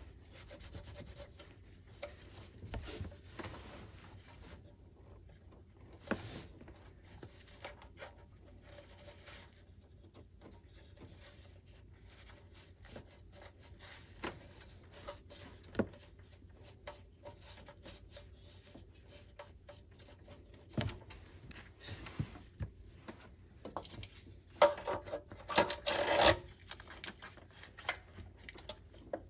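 A cloth rag rubbing and wiping the metal throttle body mounting face of an engine intake, with scattered light clicks and knocks as parts are handled. About 25 seconds in there is a louder stretch of scraping and knocking.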